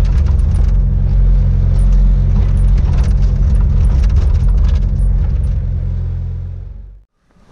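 Bobcat S100 skid-steer loader's diesel engine running steadily with a low hum, heard from inside its cab. It fades out near the end.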